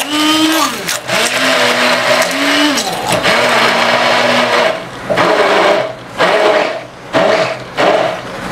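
Electric hand-held immersion blender running in a plastic jug, pureeing sliced mango with a little water. Its motor whine rises and falls as it is switched on and off in runs of a second or so, the bursts getting shorter in the second half.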